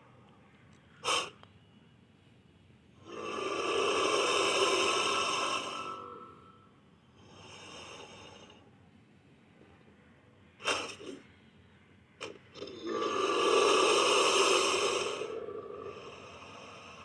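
Tylosaurus creature sound effects: two long, loud, breathy calls of a few seconds each, a softer call between them, and short sharp snorts in between.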